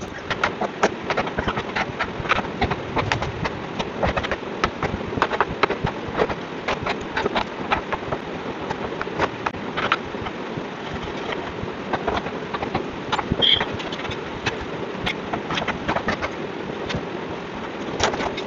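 A hammer tapping quickly and irregularly on the edge of a solid mahogany door, knocking a mortise lock body and its front strip flush into the mortise.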